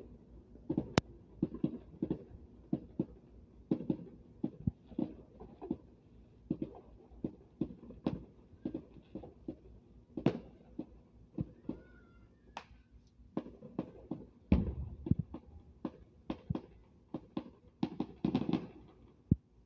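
Fireworks bursting in the distance: an irregular run of sharp pops and crackles, several a second, with a deeper thump about three-quarters through and a thick burst of crackling near the end.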